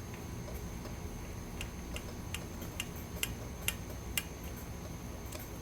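Light, irregular clicks, roughly one every half second, from a hand tool snugging down the screws of a backpack blower's recoil starter assembly.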